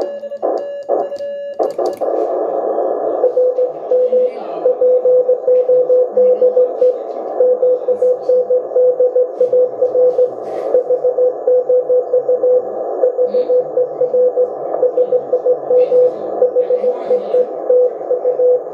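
Morse code received on a K1 QRP transceiver: a single steady mid-pitched tone keyed in dots and dashes over receiver hiss, the other station's reply. In the first second or so, the last keyed strokes of the operator's own sidetone from the Vibroplex Blue Racer bug key.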